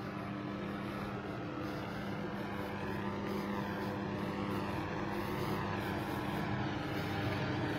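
Steady low hum of running engines with a constant drone, slowly growing louder.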